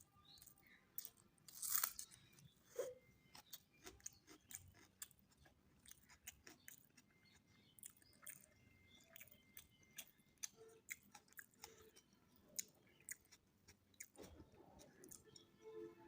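Close-up chewing of a mouthful of mutton biryani, with a run of short mouth clicks throughout and the loudest click about two seconds in.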